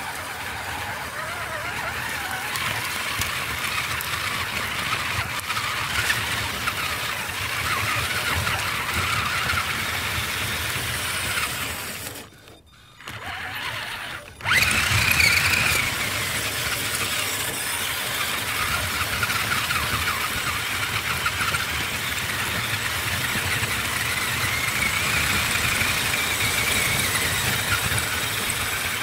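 Electric motor and gear drive of a radio-controlled crawler whining as it drives over gravel, the pitch rising and falling with throttle, with a rough rumble from the tyres on stones. The sound cuts out for about two seconds near the middle, then comes back.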